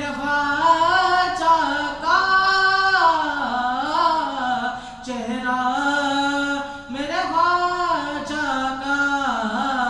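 A man's solo, unaccompanied voice singing an Urdu devotional manqabat into a microphone. He draws the syllables out in long held notes that glide up and down, with short breaks between phrases.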